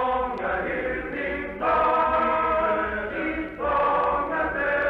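Male-voice choir singing sustained chords that change every second or two, on an old archival recording with a dull, narrow sound and a low hum underneath.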